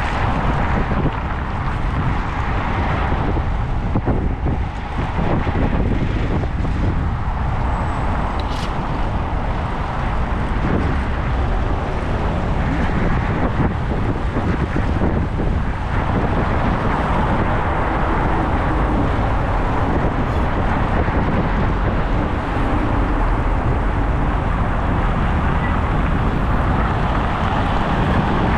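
Steady wind rushing over the microphone while riding at speed through city traffic, with the hum of road traffic underneath.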